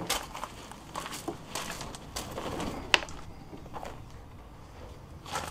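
Jib of a sailing dinghy being unfurled by hand on its roller furler: rustling sailcloth and rope with scattered clicks and knocks, the sharpest about three seconds in.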